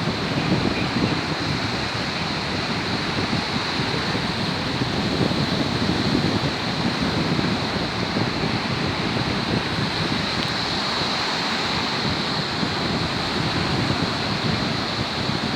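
Rough sea after a storm: waves breaking on the shore in a continuous surf that swells every few seconds, with some wind on the microphone.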